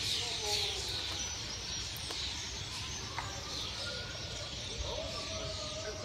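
A large flock of small birds calling overhead: a dense, steady high chatter of many birds at once, over a low background rumble.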